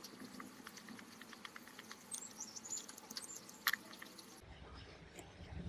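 Small screwdriver driving a screw through a chrome handle bracket into the wooden boombox case: faint rapid ticking and scraping, with one sharper click about three and a half seconds in.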